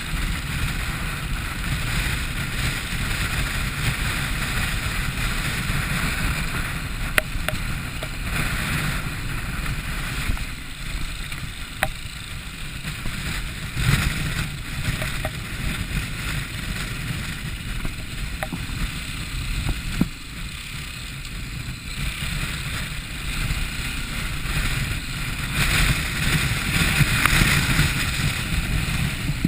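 Steady outdoor rush of wind and water noise with a deep rumble, broken by a few sharp clicks or knocks, swelling louder near the end.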